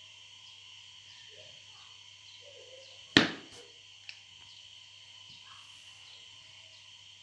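Small sewing scissors set down on a table with one sharp, loud clack about three seconds in, followed by two faint clicks within the next second, over a low steady background hiss.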